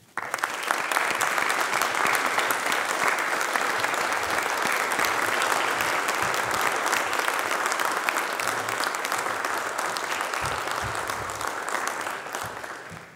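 Audience applauding, starting suddenly and holding steady before fading away near the end.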